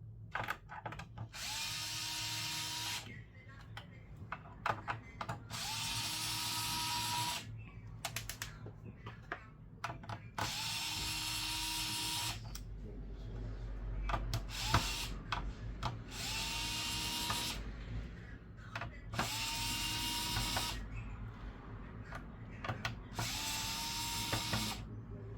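Small electric screwdriver running in about six short bursts of roughly two seconds each, its motor whine rising briefly as it spins up each time. Small clicks and taps of tools and screws fall between the bursts.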